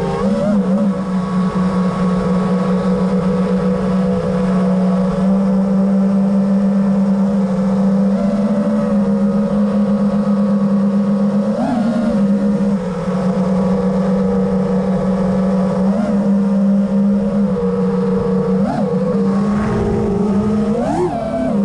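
Five-inch FPV quadcopter's 2306 brushless motors and tri-blade props whining steadily at cruising throttle, with several short pitch jumps up and back down in the second half as the throttle is punched.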